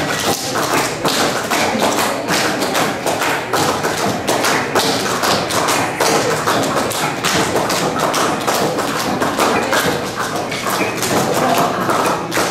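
Rapid handclaps and thumping stomps in a quick rhythm, with some music faintly under them.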